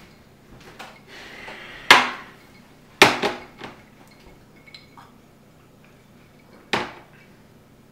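A glass and a plate being set down on a wooden table, a few sharp knocks and clinks. The loudest come about two and three seconds in, with another near the end.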